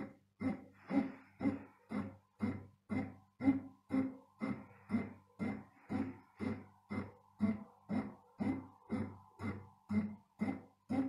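Kiwi KMC 6955 bread machine kneading dough: an even rhythm of soft thuds, about two a second, as the paddle works the dough ball round the pan, over a low steady motor hum.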